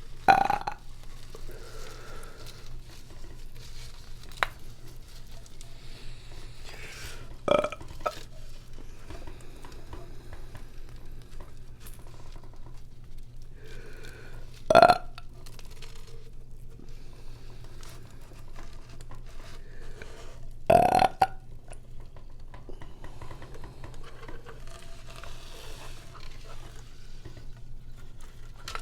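A woman burping, four loud burps several seconds apart.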